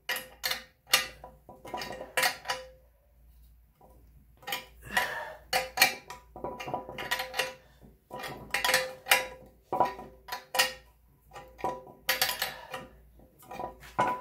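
Hand wrench turning the forcing screw of a bearing puller in bursts of quick metallic clicks and clinks with a light ring, as the front output shaft bearing is drawn out of an NP231 transfer case. There is a pause of about a second and a half a few seconds in.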